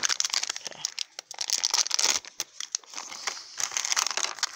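A shiny plastic blind bag crinkling in irregular bursts as it is handled and torn open.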